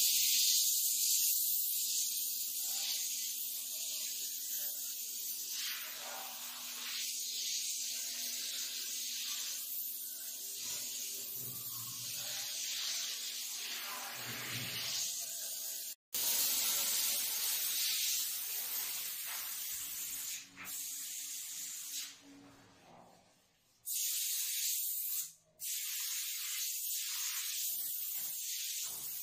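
Compressed air hissing steadily from a small gravity-feed paint spray gun as paint is sprayed onto a wall. The hiss fades out and stops for about a second roughly three-quarters of the way through, then starts again.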